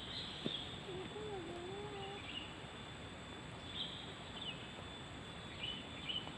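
Quiet open-air rural ambience: a steady hiss under a thin, high, steady insect-like tone, with a few short high bird chirps in the second half. A faint wavering call, likely a distant voice, comes about a second in.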